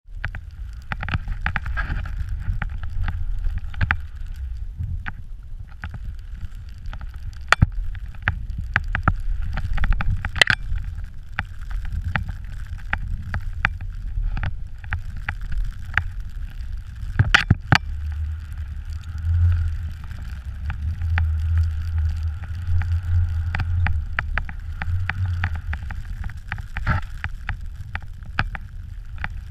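Wind buffeting the microphone of a handheld pole-mounted action camera while skiing fast through deep powder snow, a continuous rumbling rush. Scattered sharp knocks and clicks run through it, the loudest about 7, 10 and 17 seconds in.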